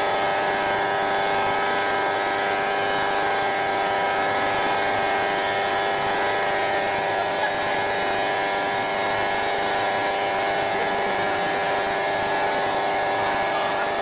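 CNC stone router running steadily, a constant machine hum and whine of several steady pitches over a hiss.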